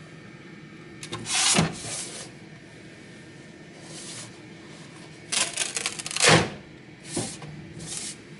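Large plastic 3D print being handled and pulled loose from a 3D printer's build plate: several irregular bursts of scraping and knocking, the longest and loudest a little past the middle.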